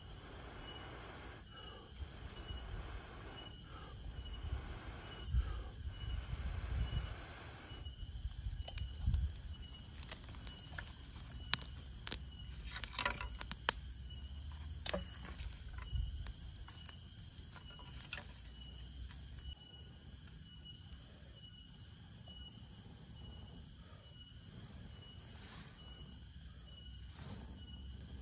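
A man blows repeated long breaths into a smoking bundle of dry leaves to bring the ember to flame, followed by scattered crackling of the dry tinder as it catches and is handled. Insects keep up a steady pulsing call behind it.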